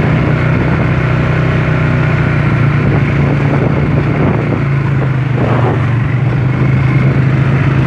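Quad bike engine running steadily while riding, a constant low hum that holds its pitch.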